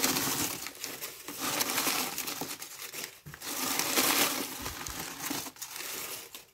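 Crumpled newspaper rustling and crinkling as a hand pulls it out of a plastic dustbin, in several bouts with short pauses.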